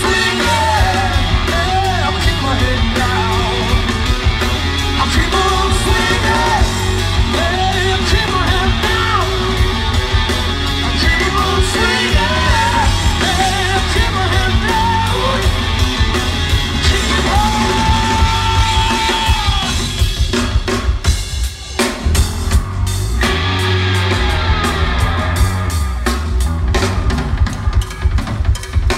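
Hard rock band playing live through a large PA: drums, bass, electric guitars and keyboard, with a male lead singer's voice over them and one long held note. About two-thirds through the band thins to separate drum hits for a couple of seconds, then the full band comes back in.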